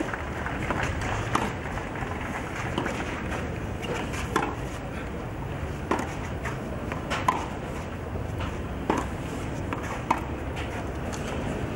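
Tennis rally on a clay court: the ball is struck back and forth by rackets in sharp, single hits about every second and a half, over a steady background murmur.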